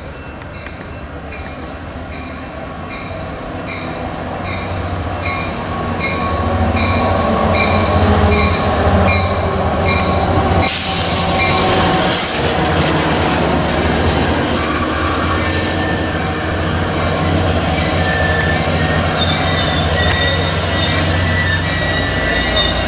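Caltrain train, led by a diesel locomotive, approaching and running past the platform. A bell rings steadily, about two strikes a second, as it nears, the rumble of engine and cars grows loud, and from about halfway the wheels squeal against the rails in high, shifting whines.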